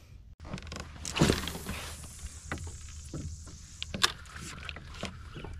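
Scattered clicks and knocks of fishing gear being handled on a kayak, over a steady hiss.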